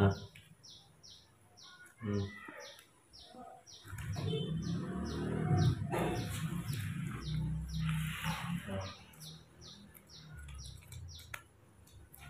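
A small bird chirping over and over, short high downward-sweeping chirps at about two to three a second, stopping near the end. A low rustling rumble comes through the middle.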